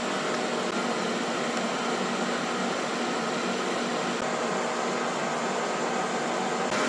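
Ninja Foodi Smart XL Grill's fan running with a steady whir and faint hum while it cooks.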